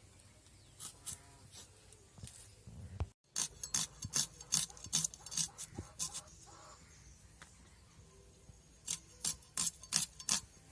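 Onion being cut with a blade: quick, crisp cutting strokes, several a second, in two runs, the first starting a little after three seconds in and the second near the end.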